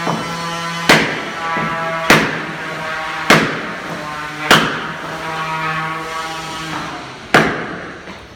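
Hammer blows on a wooden block held against a wooden boat's keel, driving the keel down to bed it in mastic. There are five blows about a second apart, then a pause and another near the end. Music plays in the background.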